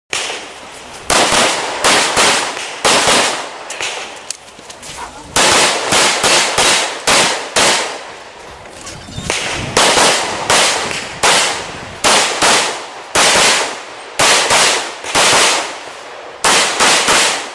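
Semi-automatic pistol fired rapidly, loud sharp shots mostly in quick pairs, in strings separated by pauses of a second or two as the shooter moves between positions on a practical shooting stage.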